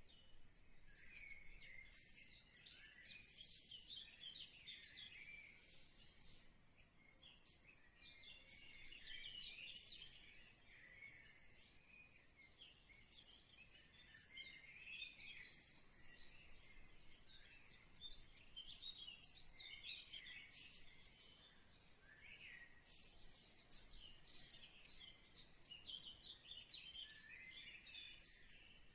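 Faint chirping of small birds, many short calls overlapping.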